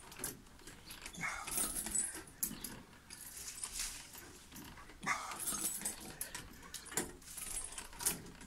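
Chains of a tyre swing jangling and creaking at the metal crossbar as it swings back and forth, with a squeak that comes back about every four seconds, once with each swing.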